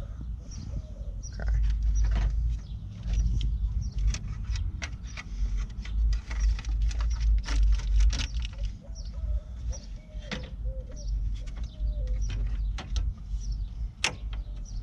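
Scattered plastic and metal clicks and taps as a headlight assembly and grille trim are pushed and fitted into place by hand, over a steady low rumble. Birds chirp faintly in the background.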